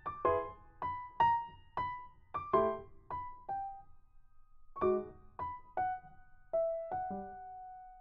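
Background piano music: single gentle notes struck about two a second, each ringing and fading, with a pause of about a second around the middle.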